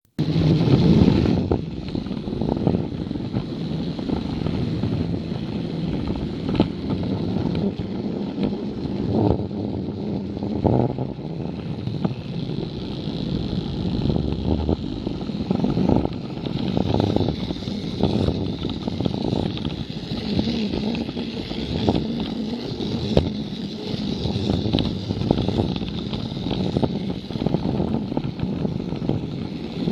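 Battery-powered Plarail toy train's small motor and gearbox running steadily, close up from a camera riding on the train, with the wheels clicking over the plastic track joints every second or so.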